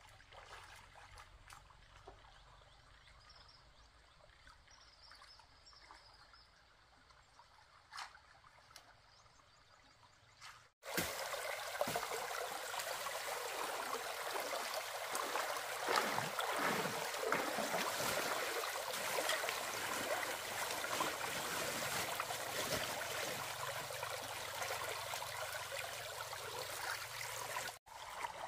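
Stream water pouring steadily over a small dam of stones and plastic sheeting, close by. It follows a quieter start with faint splashing from wading and one sharp knock.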